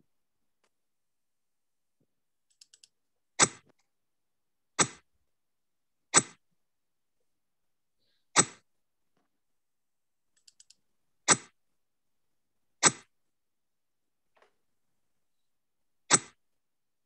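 Seven sharp click sounds of cards being played in an online bridge program, one to three seconds apart, each a short snap. Two faint bursts of quick ticks come before the third and the seventh.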